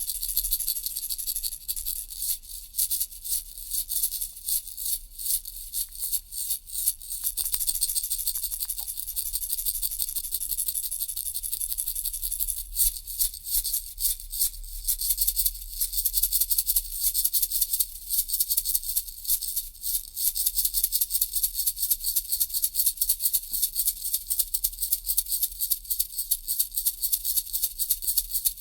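Toy baby rattle shaken over and over, a bright, hissy rattling. It comes in quick uneven bursts for about the first twelve seconds, then settles into a steadier, faster shaking.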